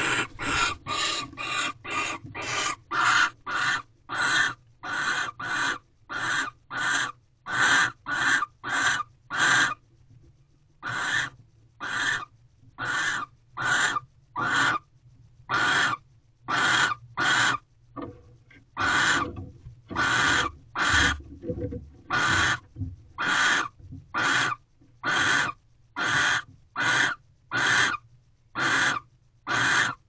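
Barn owl hissing: a long series of short, rasping hisses, about two a second, with brief pauses about ten and eighteen seconds in.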